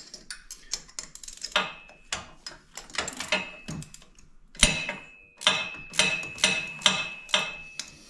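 Hand ratchet with an 11 mm socket clicking as a nut is run down on the bolt that holds the winch cable to the drum, with metallic ticks and a light ring from the metal parts. The clicks come in short irregular strokes at first, then as a steadier run about two a second in the second half.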